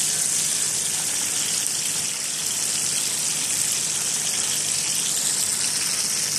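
Two whole fish shallow-frying in hot oil in a pan, the oil sizzling with a steady hiss. The underside is already cooked.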